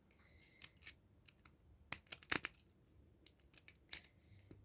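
Broken lock pick and tension tool working inside a cabinet lock: irregular small clicks and light scrapes as the pins are picked.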